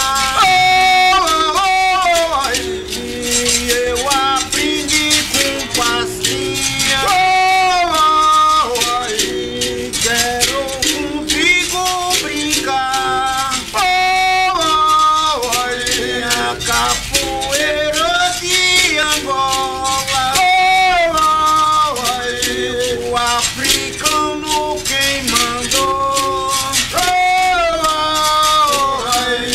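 Berimbaus twanging with shaken caxixi basket rattles, accompanying men singing a capoeira song.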